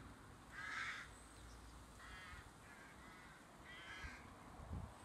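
Birds calling in short, separate calls: a loud one about a second in, two more just after two seconds, and another near four seconds, over a low background rumble.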